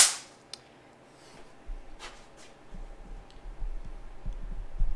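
A single sharp metallic knock, as of a part or tool set down hard on a bench, fading quickly, followed by a few light clicks and low handling rumble.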